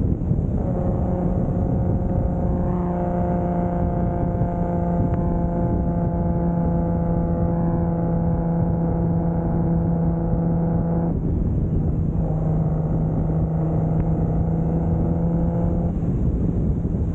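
Turbocharged 2JZ straight-six of a 1995 Toyota Soarer running at a steady cruise, over road and wind noise. The low engine tone holds steady throughout, while its higher tones drop out for about a second midway and again near the end.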